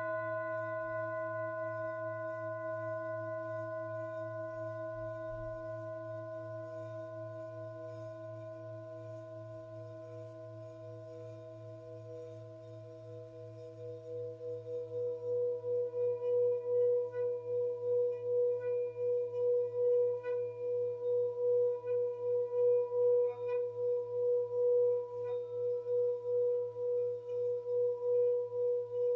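Tibetan singing bowl ringing. A struck tone fades slowly, then about fourteen seconds in a new sustained tone builds and holds, wavering in loudness about once a second. A steady low hum runs underneath.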